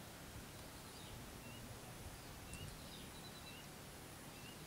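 Faint steady outdoor background noise with three brief, faint bird chirps spread through it.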